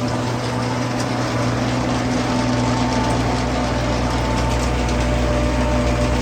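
Heavy farm machinery engine running steadily, a constant hum with a noisy mechanical rush.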